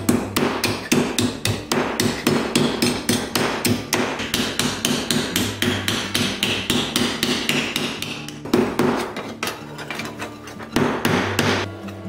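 A hammer beating a sheet of brass, the split and flattened wall of a .50 BMG cartridge case, against a steel anvil block. The blows come fast, about four to five a second, with a short let-up about ten seconds in.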